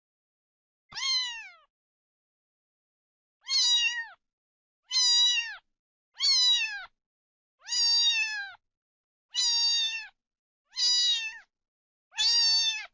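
A kitten meowing eight times: a single high meow about a second in, then after a pause a steady run of meows about every second and a half, each one dropping in pitch at its end.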